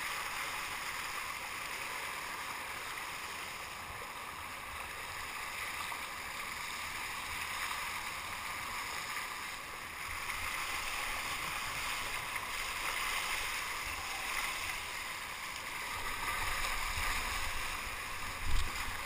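Water rushing and splashing steadily along the hull of a sea kayak moving fast, the spray and bow wave making an even hiss, with a low bump near the end.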